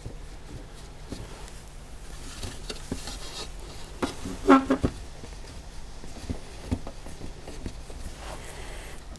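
Small clicks, knocks and handling noises of a small exhaust-fan motor, its bearing freshly oiled, being turned by hand and fitted back into its plastic housing. There is a brief louder squeak or scrape about four and a half seconds in.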